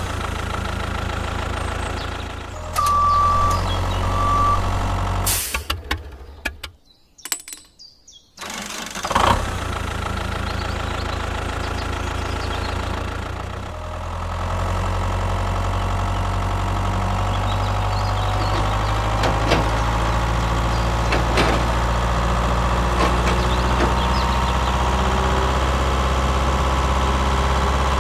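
Tractor engine running steadily, broken by abrupt cuts and a brief gap about seven to eight seconds in. There are two short high beeps a few seconds in.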